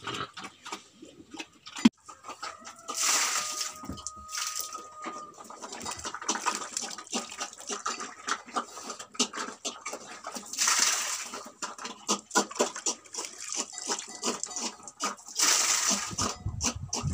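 A pig eating at a wooden trough, with a steady run of wet chomping and slurping clicks. Wet mash is tipped from a bowl into the trough in splashing pours: about three seconds in, around eleven seconds in, and near the end. A single sharp knock comes about two seconds in.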